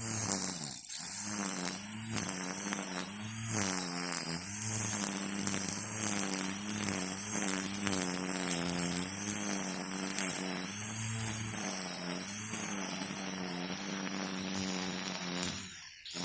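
String trimmer running, its pitch rising and falling as the throttle is worked, then cutting off just before the end.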